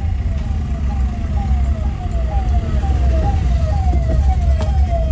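A siren tone sweeping downward again and again, about twice a second, over the steady low rumble of a car creeping through traffic, heard from inside the cabin.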